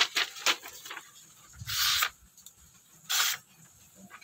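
A thin spring-steel knife blade slicing through a sheet of paper twice, giving two short papery hisses about a second and a half apart, with light rustling of the paper. It is a paper-slicing sharpness test, and the clean cuts show the edge is sharp.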